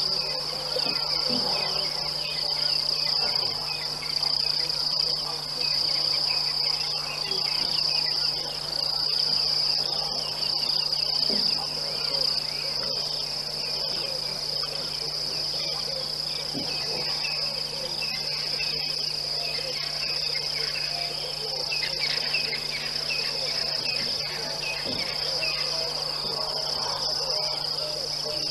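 Chorus of night insects trilling steadily at a high pitch, with a faint low hum underneath.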